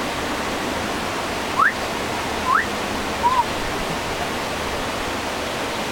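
Steady rush of a flowing river. Three short rising whistles sound about a second apart over it.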